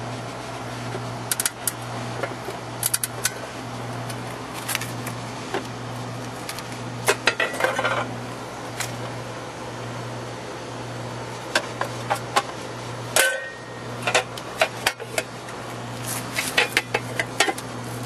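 Sharp metallic clicks and clatter of a sheet-metal air-conditioner disconnect box cover being opened and handled, in scattered groups with the loudest click about 13 seconds in. A steady low hum from the running air conditioner underlies it.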